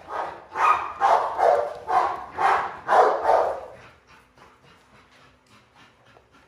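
American bully dog barking repeatedly, about two barks a second, stopping about four seconds in.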